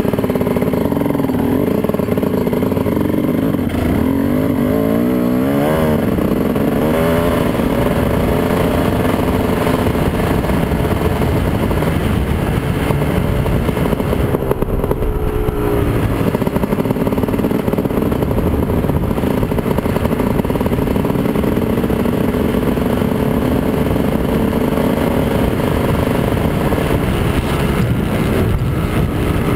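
Dirt bike engine running as the bike rides along a gravel trail, its pitch rising and falling a few seconds in as the throttle is worked.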